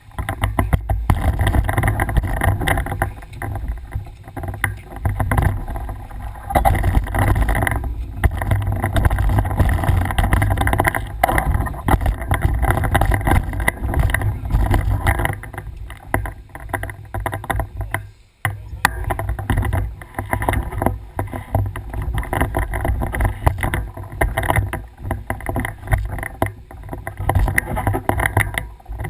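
Heavy wind buffeting on the camera microphone and the rattle of a mountain bike riding over a rough, muddy trail, broken by a brief lull about two-thirds of the way through.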